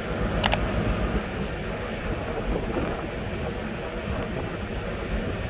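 Steady low rumble of background noise on a ship's deck, with a sharp double click about half a second in.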